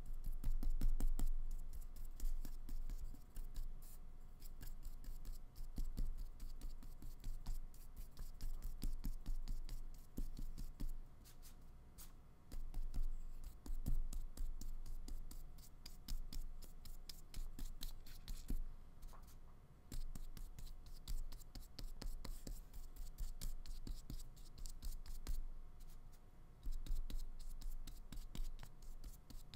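Flat paintbrush stroking and dabbing acrylic paint onto paper taped to a table: a steady run of soft scratchy brush sounds, with dull low thuds from the brush pressing against the table.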